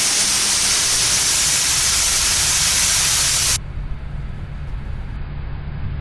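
Loud rushing hiss of tornado wind, cut off suddenly about three and a half seconds in, leaving a quieter low rumble with a faint steady hum.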